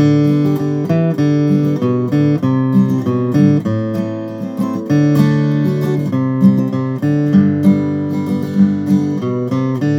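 Martin OM-21 Standard steel-string acoustic guitar being played solo, a run of chords with sharp attacks that change every half second to a second.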